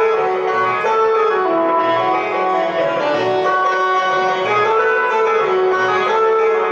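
Roland XPS-10 keyboard playing the melody of a devotional bhajan as an instrumental interlude, held notes moving up and down over a steady beat.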